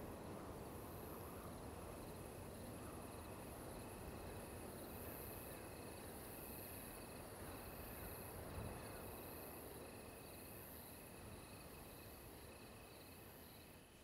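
Faint crickets chirping in repeated trills over a low, even hiss.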